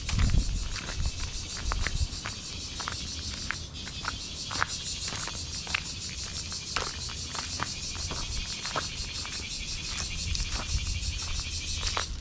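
A steady chorus of insects in the grass and trees, a high, fast-pulsing buzz, with scattered short chirps. A few footsteps crunch on gravel near the start.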